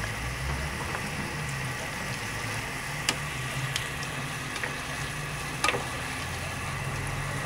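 Sauce simmering and sizzling in a pan as cornstarch slurry is stirred in to thicken it, a steady sizzle with sharp clicks of the utensil against the pan about three seconds in and again near six seconds.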